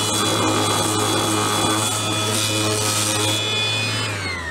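Ryobi RROS18C 18 V brushless random orbital sander running steadily, its sanding pad rubbing on wood. Near the end it is switched off and the pad brake winds it down quickly in a falling whine.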